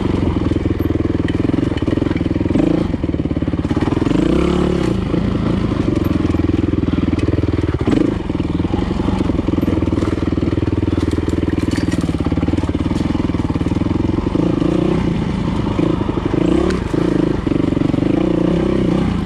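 Dirt bike engine running under load on a technical single-track trail, its pitch rising and falling as the throttle is opened and closed.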